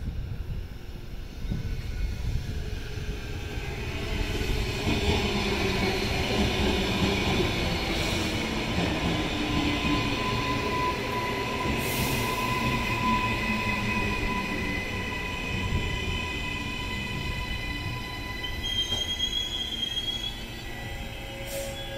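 Queensland Rail NGR electric multiple unit running along the platform, with a low rumble of wheels on rail and steady high whining tones over it. The sound swells as the train comes alongside, with a couple of sharp clicks, then eases near the end.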